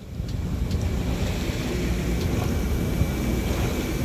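Steady rumble of wind on the microphone and water rushing past a boat under way, fading in at the start.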